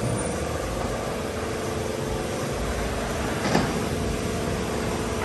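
Steady mechanical hum with a constant mid-pitched tone, and a single brief knock about three and a half seconds in.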